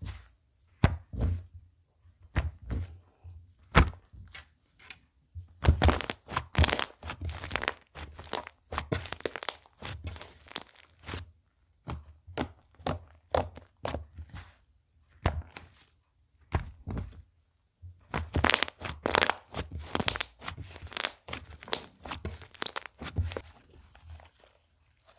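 Slime being squeezed, stretched and pressed by hand, giving sharp crackling, clicking pops. The pops are scattered at first, then come thick and fast for several seconds about a quarter of the way in, and again in the second half.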